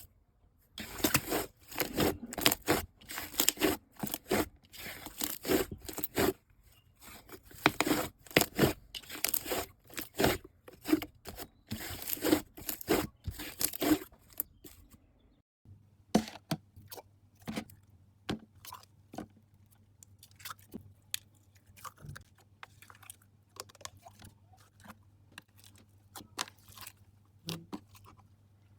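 Slime being squeezed, stretched and poked by hand, giving dense, rapid crackling and popping. About halfway through it changes abruptly to quieter, scattered pops and clicks over a faint steady low hum.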